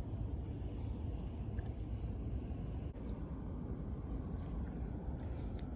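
Insects chirping in a high, even pulse about four to five times a second, fading in and out, over a steady low rumble.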